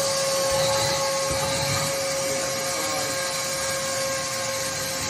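Mastervac 30-litre shop vac running steadily at full speed: a steady motor whine over the rush of air.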